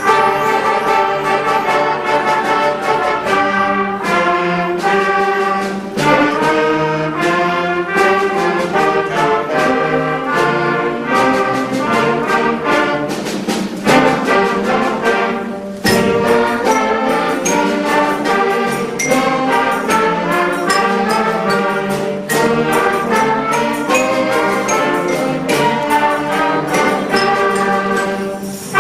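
School concert band playing: brass and wind instruments with percussion strokes. The sound thins briefly about fourteen seconds in, then the full band comes back in.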